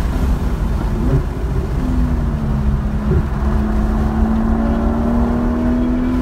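2017 Porsche 911 engine, with road and wind noise, heard from inside the cabin on track. The car brakes and downshifts into a corner, with brief upward pitch jumps about one and three seconds in, then the engine note rises slowly as it accelerates out at around 5000 rpm.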